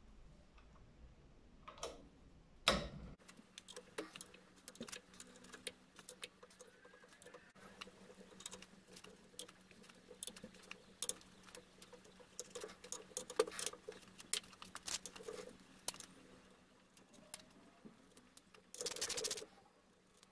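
Socket ratchet clicking and metal clinking as the bolts holding the crown wheel to the differential carrier are loosened and removed, in scattered small ticks, with a louder knock about three seconds in and a brief rasping noise near the end.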